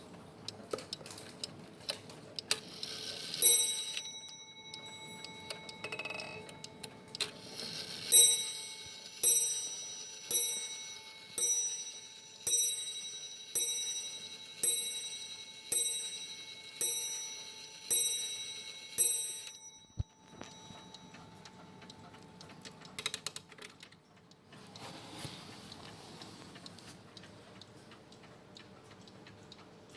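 Dutch wall clock's bell being struck by its hammer: a single strike, then a run of about eleven strikes about a second apart, each ringing on and fading before the next.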